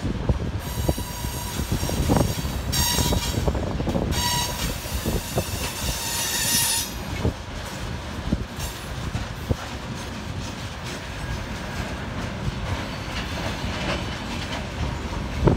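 Freight train of railway tank cars rolling past: a steady rumble with wheel clicks over rail joints. High-pitched wheel squeal comes and goes through the first half and dies away about seven seconds in.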